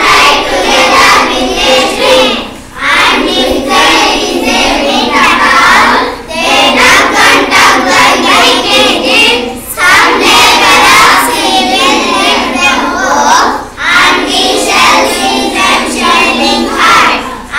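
Many young schoolchildren reading aloud together in chorus, a loud mass of overlapping child voices. The voices break off briefly about every three to four seconds between phrases.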